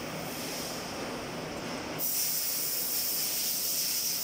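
A steady hiss with no distinct knocks or clicks, getting louder about two seconds in.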